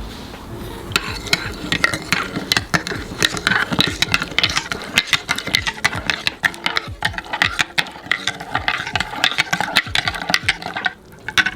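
A spoon stirring a drink in a cup, clinking against the sides many times in quick succession. It starts about a second in and stops shortly before the end.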